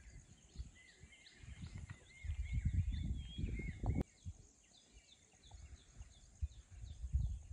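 Birds calling with many short, repeated chirps and whistles, over low gusts of wind rumbling on the microphone and a faint steady high hiss. A single sharp click about four seconds in.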